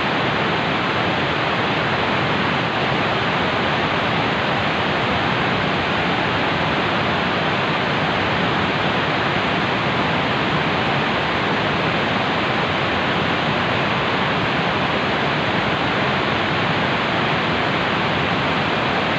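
Steady, even rush of fast-flowing muddy river water.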